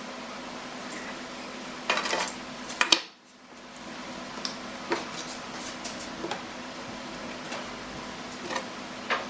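Light knocks and clatter of pine boards and clamps being handled and set down on a wooden workbench: a quick cluster of knocks about two to three seconds in, then scattered single clicks, over a steady background hum.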